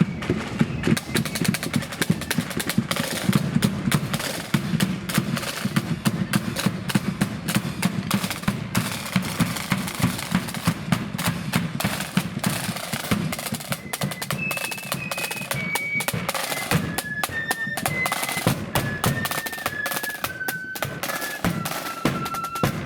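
Marching flute band's snare and bass drums playing a rapid, dense drum beat, with the flutes coming in on a melody a little past halfway through.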